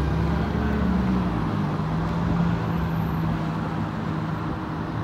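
Road traffic at an intersection: a steady low engine hum, with a deeper rumble that fades away about a second and a half in.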